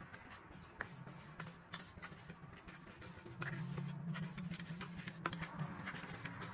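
Metal spoon stirring and scraping a wet mash of kibble, canned food and goat milk in a stainless steel bowl, with scattered light clinks. A low hum comes up about three seconds in and carries on beneath the stirring.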